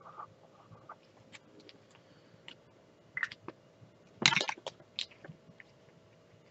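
Marker writing on a sheet of sticker labels, then scattered clicks and a short crackle as the label sheet and a clear plastic case of small bottles are handled, the crackle loudest about four seconds in.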